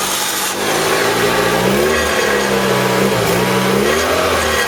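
Nissan Primera's engine running and being revved twice: the note rises about two seconds in, drops back, rises again near four seconds and falls off.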